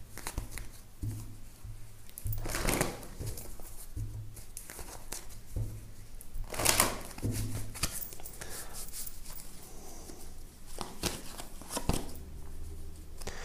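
A deck of tarot cards being shuffled by hand: several short bursts of card rustling and riffling a few seconds apart.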